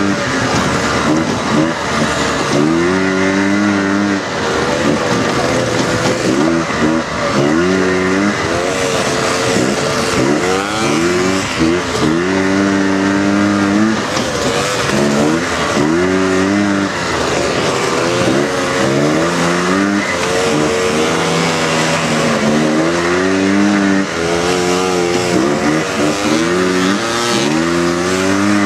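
Single-cylinder four-stroke engine of a Honda FL-series off-road buggy driven hard, its pitch climbing in repeated revving surges every two to three seconds as the throttle is worked, over a steady rush of noise.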